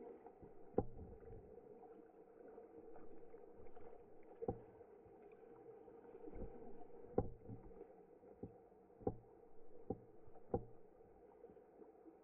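Muffled lapping of pool water heard through a waterproof camera housing at the surface, with sharp knocks at irregular intervals, several of them in the second half.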